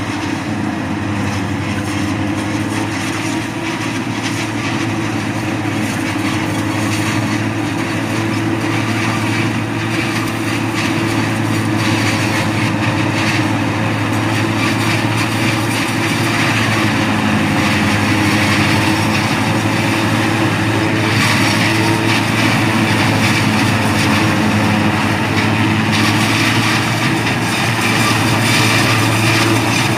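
Tractor-mounted forage harvester running steadily while it cuts and chops standing Napier grass: a continuous engine drone with a rushing noise from the cutter and blower on top, growing slowly louder as the machine comes closer.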